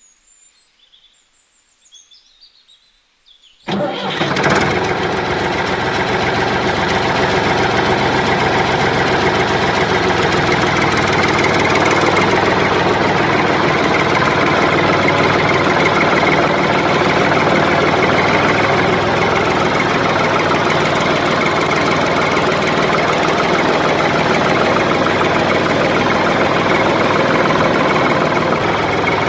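Near silence at first, then a motor starts abruptly about four seconds in and keeps running loudly and steadily.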